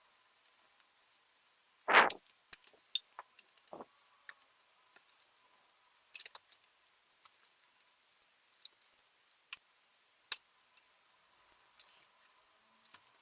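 Scattered small clicks and taps of ThinkPad T420 laptop parts being handled during disassembly, with one louder knock about two seconds in.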